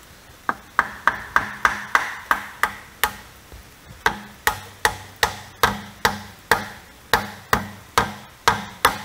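Hammer lightly tapping a plastic piece into its hole in a VW Golf Mk4 rear axle beam until it sits flush. A steady run of sharp taps, about two to three a second, with a short pause about three seconds in.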